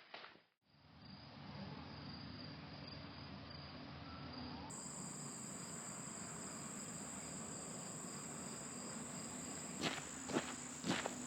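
Steady high-pitched chirring of crickets and other late-summer insects, with a second, higher insect tone joining about halfway through. Footsteps start up near the end.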